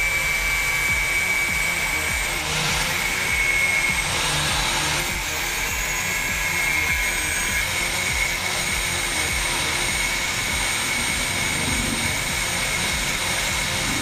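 Angle grinder with a cut-off disc cutting through a metal motorcycle signal-light bracket, its motor running with a steady high whine over the grinding hiss of disc on metal.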